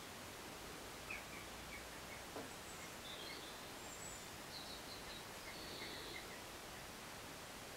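Quiet outdoor background hiss with small birds chirping now and then in short runs of quick notes, and a soft tap about two and a half seconds in.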